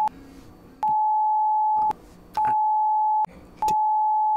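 Censor bleep: a steady, single-pitched beep tone near 1 kHz, sounding in about one-second stretches with short gaps between, blanking out a spoken answer.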